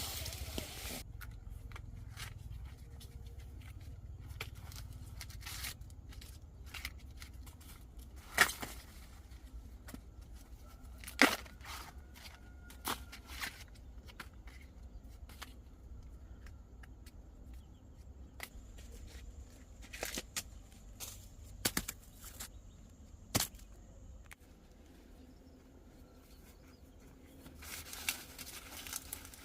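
Scattered sharp snaps and clicks against a low outdoor rumble, with light rustling and footsteps.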